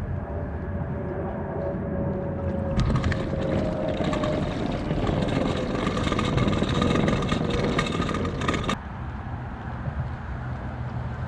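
A road vehicle driving: steady engine and road rumble with a tone that slowly falls in pitch. Louder rushing noise runs through the middle, then the sound changes abruptly near the end to a quieter, steadier low hum.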